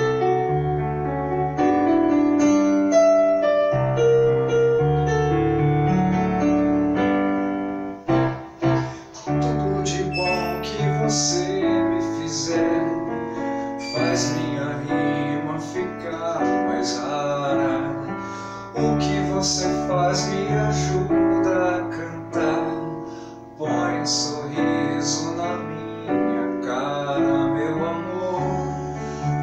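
Yamaha digital keyboard playing a piano instrumental interlude: sustained chords over a moving bass line, with no voice.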